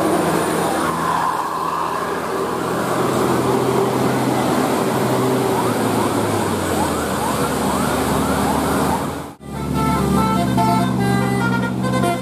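Bus engine and road noise with short rising, siren-like glides. After a sudden cut about nine seconds in comes a telolet bus horn, a set of musical air horns playing a tune of short stepped notes.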